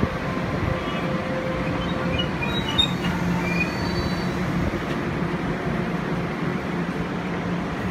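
Taiwan Railways EMU500 electric commuter train rolling slowly into the platform with a steady running rumble and hum, and a few short high wheel or brake squeals in the middle.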